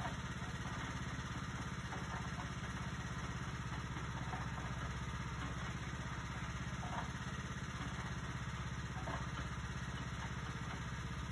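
An engine idling steadily: a low, even hum with a fast regular pulse that does not change. A few faint short knocks or clinks come through over it.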